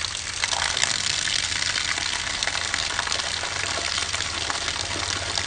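Water spraying steadily from a garden hose pistol-grip nozzle and splashing onto muddy ground, with a low steady hum beneath.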